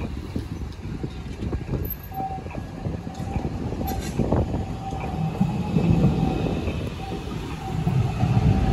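Modern low-floor electric tram passing on street track, a steady rumble of wheels on rail that grows louder towards the end, with a thin whine coming and going.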